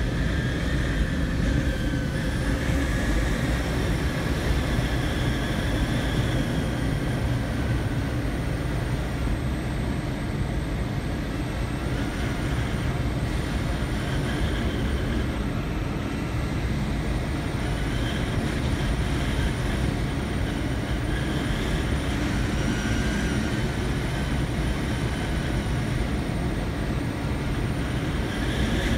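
Steady rush of air over a glider's canopy in flight, heard from inside the cockpit as a constant low rumble. A faint tone wavers up and down in pitch behind it.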